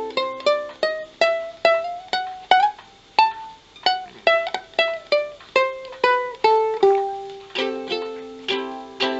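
Strumbox cardboard-bodied kit ukulele played unplugged: a picked single-note melody, about two notes a second, stepping up and then back down in pitch, with a strummed chord ringing near the end.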